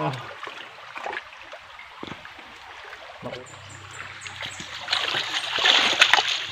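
Shallow creek water splashing and sloshing as hands and feet work through the muddy streambed, with irregular small splashes and a louder burst of splashing about five seconds in.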